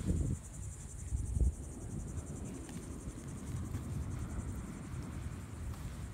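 Wind rumbling on the phone's microphone, with gusts near the start and about a second and a half in, and under it a faint, steady, high-pitched pulsing buzz.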